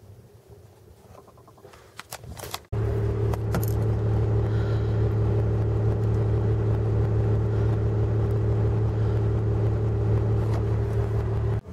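A vehicle engine running steadily at idle, heard from inside the cab with an even low hum. It cuts in suddenly about three seconds in, after a few faint clicks.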